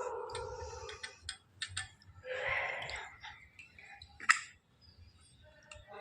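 Slate pencils being scraped and handled: two stretches of rasping scraping, one at the start and one about two seconds in, with light clicks of the pencils knocking together and one sharp click a little after four seconds.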